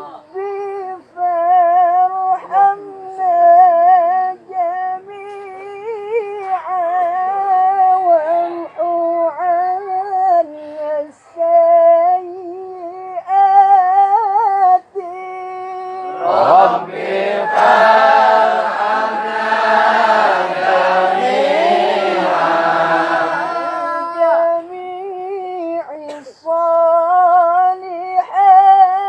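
Unaccompanied solo voice chanting a sholawat, an Islamic devotional song, with long wavering melismatic ornaments on held notes. From about 16 to 24 seconds in, the sound grows fuller as other voices join in, before the solo voice carries on alone.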